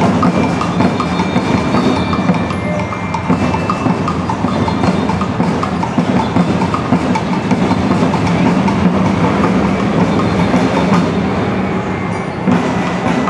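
Parade drumming heard from high above the street: a rapid run of sharp drum and stick clicks over a steady low rumble of street noise.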